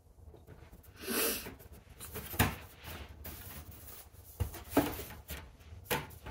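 A picture frame being handled on the floor while something is worked back into it: a short scraping rush about a second in, then a sharp click and a few knocks as the frame and its backing are pushed and pressed into place.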